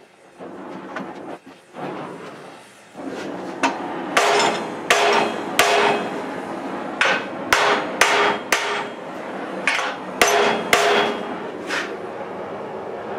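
Hammer blows on a red-hot steel flat bar clamped to a steel bench, bending the heated bar: about a dozen sharp, ringing metal strikes in uneven groups, starting about four seconds in. Before them, a gas torch hisses while heating the bar.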